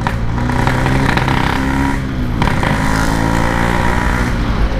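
Yamaha RX-King's 135 cc two-stroke single-cylinder engine running under way through its aftermarket standard-style exhaust. Its pitch dips briefly about halfway through, then picks up again.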